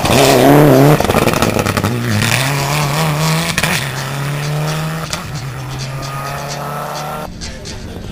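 Rally car engines at full throttle: a Mitsubishi Lancer Evolution's turbocharged four-cylinder passes close by, loudest in the first second with a wavering pitch. Then a rally car is heard further off, its engine pitch climbing steadily as it accelerates. The sound changes abruptly about seven seconds in.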